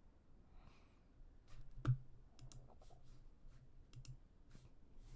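Quiet, irregular clicking of a computer mouse and keyboard, with one louder click about two seconds in.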